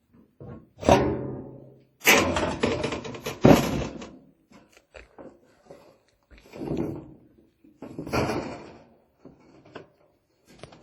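Thuds and metallic rattles on a metal roof, in four bouts, the longest and loudest from about two to four seconds in.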